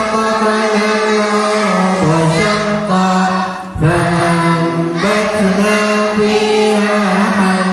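Voices reciting Quran verses together in a slow chanted melody for memorisation review (murajaah). Long held phrases break once for breath a little under four seconds in.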